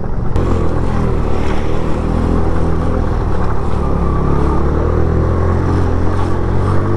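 Suzuki GS 150SE motorcycle's single-cylinder four-stroke engine running steadily while riding, the engine note picking up just after the start and then holding even.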